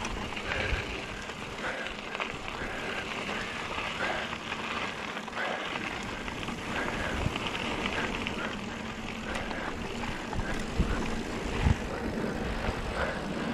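Mountain bike rolling fast down a dry dirt and gravel trail: tyres crunching over the ground, the bike rattling over bumps, and wind buffeting the microphone. Scattered knocks from hits on the trail, the loudest near the end.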